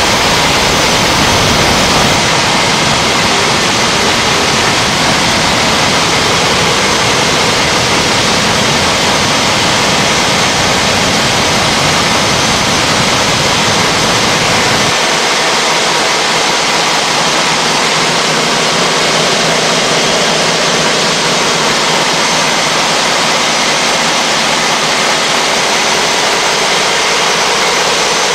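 Steady, loud rushing noise of a blast furnace cast house while molten iron is tapped and runs down the trough. The deep low part drops away suddenly about halfway through.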